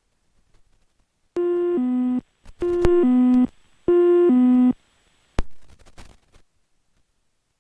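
Cockpit aural alert in a Cessna Citation Mustang: an electronic two-note chime, high then low, sounding three times in a row. A sharp click follows a little later, like a switch or button being pressed.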